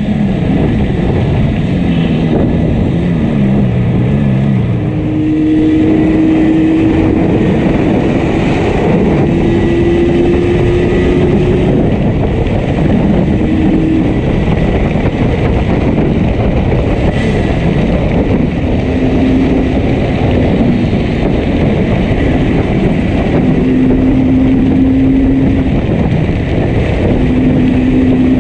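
Yamaha RD350's two-stroke twin-cylinder engine running under way, its pitch falling in the first few seconds and then rising and shifting with the throttle over a steady rush of noise. The bike is running with one cylinder heavily misfiring.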